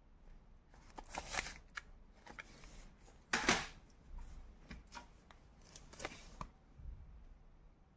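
Sealed audio cassettes being handled: a run of short plastic clicks and rustles, the loudest rustle about three and a half seconds in.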